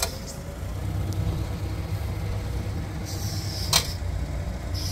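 Forklift engine idling with a steady low rumble, with a short hiss and a sharp click about three and a half seconds in.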